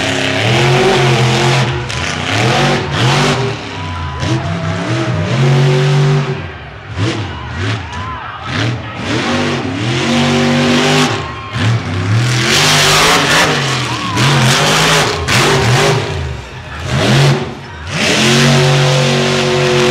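Monster truck engine revving hard, its pitch climbing and falling over and over as the throttle is worked, with a few short dips where it backs off.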